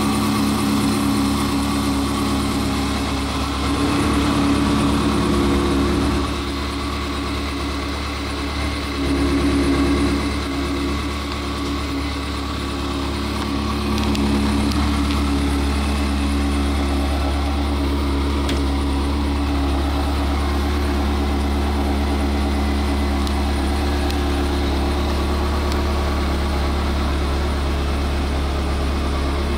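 Ferrari 360 Modena's 3.6-litre V8 idling steadily, louder for a few seconds twice in the first ten seconds.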